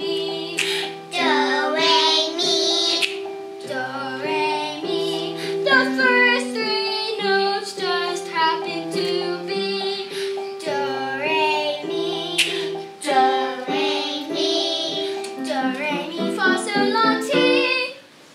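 A young girl singing a solo with a wavering, vibrato-like voice over an instrumental accompaniment of held chords.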